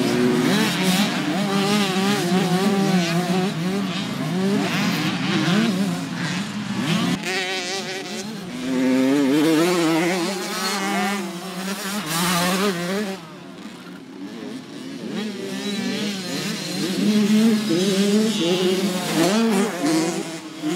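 Engines of two small youth motocross bikes revving hard and backing off as they race through the dirt corners, their pitch climbing and dropping with the throttle. There is a brief quieter spell a little past halfway.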